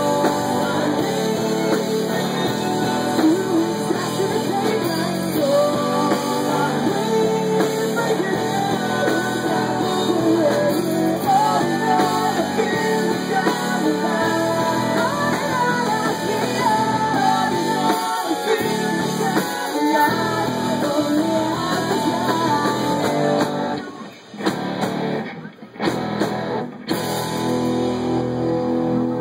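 Live rock band playing, with guitars and a singer. About four-fifths of the way through, the music breaks off briefly twice before picking up again.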